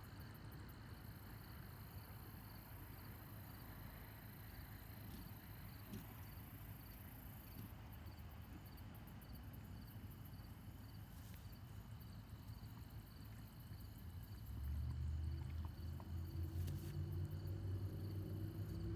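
Insects chirping in a steady, fast high-pitched pulsing over a low outdoor rumble. About fifteen seconds in, a motor vehicle's engine comes up and grows louder.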